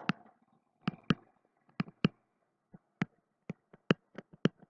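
Irregular sharp clicks and taps from pen strokes on a digital whiteboard while a word is written by hand. They come sparsely at first, then about three to four a second in the second half.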